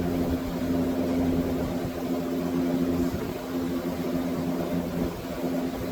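A steady mechanical hum at an even pitch, with a few faint knocks.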